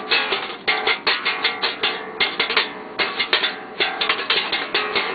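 Bass guitar played with a very fast slap-and-pop technique: a dense, rapid run of sharp, percussive plucked notes, thinning briefly twice.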